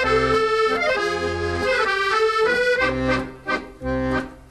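Accordion playing an instrumental passage of a folk song: held chords over a bass line, with two short breaks near the end.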